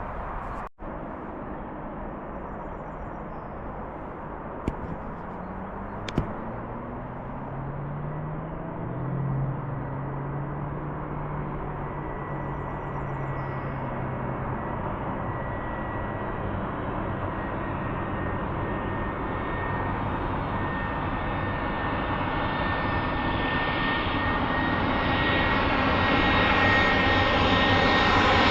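Jet airliner on landing approach, its engine noise growing steadily louder as it comes nearer. A steady high whine joins partway through.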